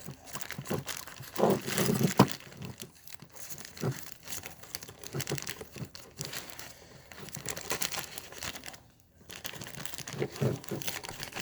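Packaging being crinkled and torn open, with irregular rustling and sharp clicks; it stops briefly about nine seconds in.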